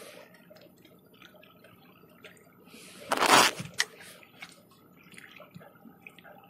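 A short splash of water a little over three seconds in, among faint drips and small knocks.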